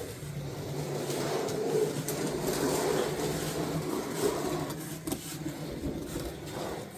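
Domestic cat purring steadily close to the microphone while being petted, with a few soft clicks about five seconds in.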